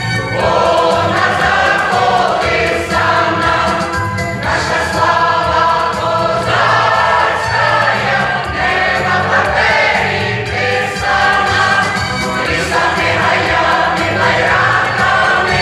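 Choir singing a Ukrainian song in continuous phrases, with a steady low accompaniment beneath the voices.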